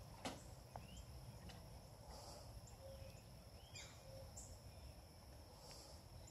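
Near silence: faint outdoor ambience with a few scattered bird chirps over a steady high insect hum.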